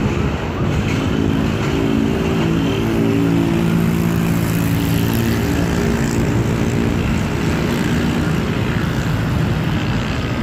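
Steady, deep drone of a C-130 Hercules four-engine turboprop flying over, mixed with the rumble of a passenger train pulling away. The drone holds steady in level throughout.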